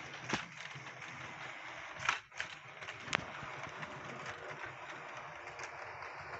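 Model pannier tank locomotive hauling coaches along the layout track: a steady whirring of its small electric motor and the rolling of wheels on the rails, with a few sharp clicks about two and three seconds in.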